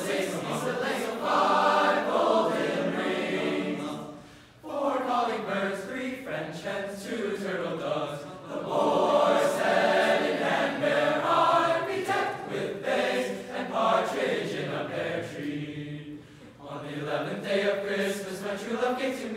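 Young men's choir singing a cappella in several parts, sustained chords that swell and fade, dipping briefly about four seconds in and again about three-quarters of the way through.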